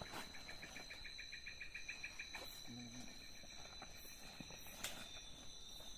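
Night chorus of crickets and other insects: steady high-pitched shrilling, with one insect trilling in rapid pulses for the first two seconds or so. A few brief clicks and rustles of people moving through the undergrowth are mixed in.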